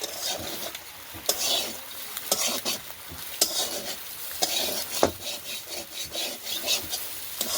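Small fish frying in a pan, sizzling, while a spatula stirs and scrapes them, knocking against the pan about once a second.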